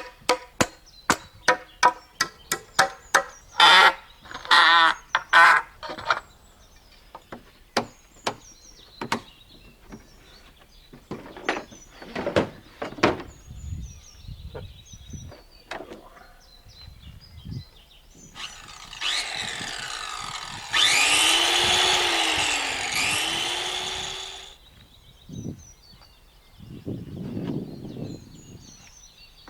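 A fast run of sharp knocks on wood, then scattered single knocks. About eighteen seconds in, a power saw cuts wood for around six seconds, its pitch dipping twice as the blade bites.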